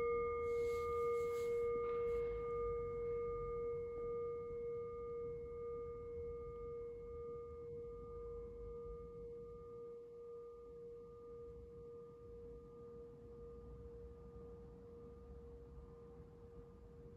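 Brass singing bowl ringing after a mallet strike, its tone slowly fading. It has a strong low note with fainter higher overtones, one of which wavers gently; the highest overtone dies away first.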